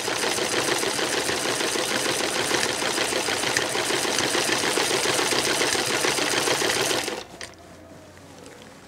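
Sewing machine running at a fast, steady mechanical clatter as it stitches cloth, stopping abruptly about seven seconds in.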